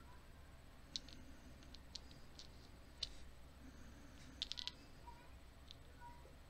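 Faint scattered clicks and ticks of small metal lock parts handled by hand: the brass plug and pin parts of a disassembled American Lock 1100 series padlock. There is a quick run of several clicks about four and a half seconds in.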